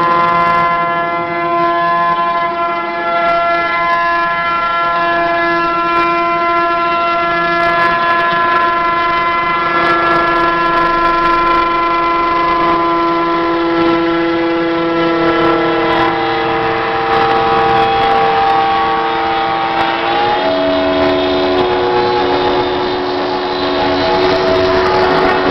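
CNC router cutting foam board: a loud, steady mechanical whine of several stacked tones. The pitch steps to new levels twice in the second half as the machine changes its cutting path.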